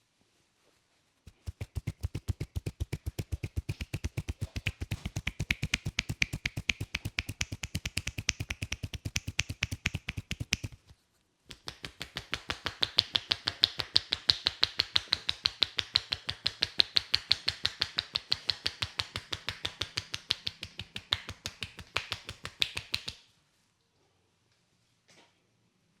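Massage percussion (tapotement): a masseur's hands rapidly striking a client's head, many strikes a second, in two runs of about ten seconds with a short break between. The first run sounds duller and deeper, the second sharper and more clap-like.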